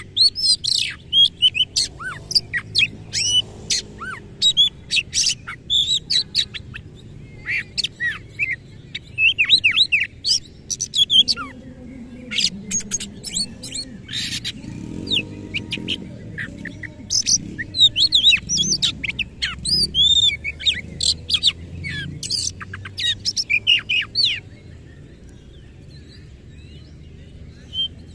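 Oriental magpie-robin (kacer) singing fast, loud phrases of harsh chattering notes and sharp whistles, with rough mimicked fill-in phrases (isian). Near the end the song breaks off for a few seconds.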